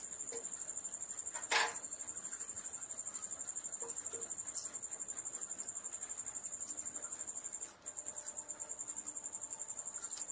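Cricket chirping in a steady, high, rapidly pulsing trill that breaks off briefly once, with a single sharp knock about one and a half seconds in.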